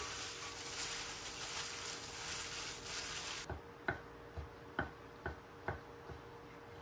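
A plastic-gloved hand tossing mung bean jelly with seaweed flakes in a glass bowl gives a steady rustling hiss. About three and a half seconds in it gives way to a knife cutting thin egg omelette into strips on a wooden cutting board, about six sharp taps roughly two a second.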